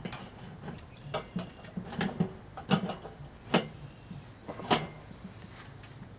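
Metal rotisserie spit knocking and clinking against the kettle grill's rotisserie ring and motor bracket as the skewered chicken is set in place: several separate sharp knocks, the loudest three in the second half.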